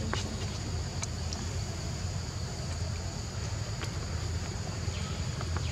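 Outdoor background noise: a steady low rumble with a thin, steady high-pitched drone above it, typical of insects, and a few faint clicks.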